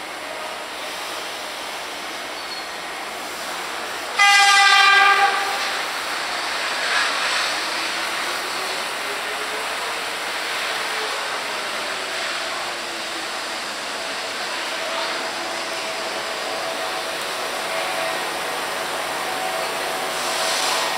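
Tokyo Monorail train sounding its horn: one loud blast about a second long, some four seconds in. A monorail train then runs into the platform with its motor whine falling in pitch as it slows.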